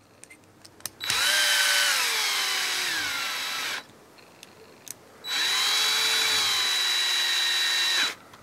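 Cordless drill-driver driving small screws into a plastic air-rifle magazine in two runs of about three seconds each. The motor's whine falls in pitch as each screw draws in, then stops suddenly. A few small clicks come between the runs.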